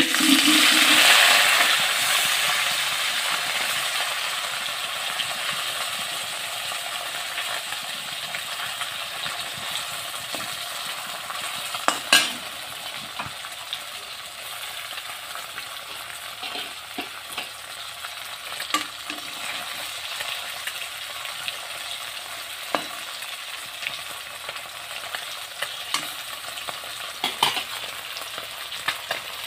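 Small whole fish dropped into hot oil in a metal wok, setting off a loud sizzle that slowly settles into steady frying. A metal spatula clicks and scrapes against the pan a few times, loudest about twelve seconds in.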